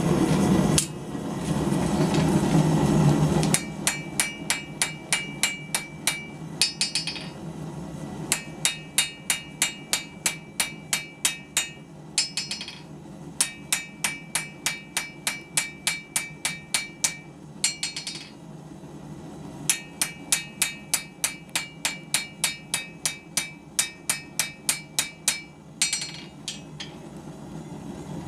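Blacksmith's hammer striking steel on an anvil in runs of about three ringing blows a second, with short pauses between runs. The first few seconds hold a steady noise before the hammering starts.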